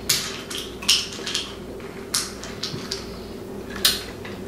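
Warheads hard candies clattering against a ceramic bowl as a hand picks through them: a handful of short, sharp clicks and rattles spread over a few seconds.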